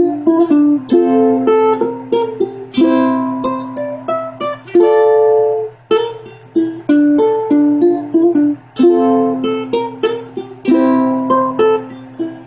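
Aklot electric tenor ukulele played solo: a steady run of plucked notes and chords, each ringing briefly and fading.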